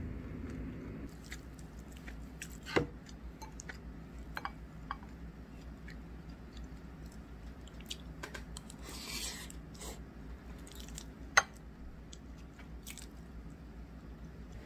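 A spoon mixing bibimbap in a ceramic bowl: soft squishing and scraping of rice and avocado, with scattered light clinks against the bowl and two sharper clinks, about three and eleven seconds in.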